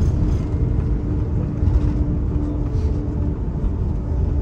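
Cabin noise of an Airbus A350-941 taxiing: a steady low rumble from its Rolls-Royce Trent XWB engines at idle and its wheels rolling on the taxiway, with a faint steady hum that fades about three seconds in.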